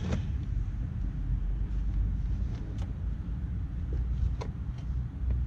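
Steady low rumble with a few faint, short clicks as a breaker bar on a 32 mm socket is pushed down to crack loose the driveshaft bolt.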